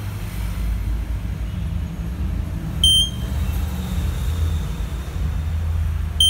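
Fire alarm control panel's buzzer giving two short, high beeps about three and a half seconds apart, over a steady low hum.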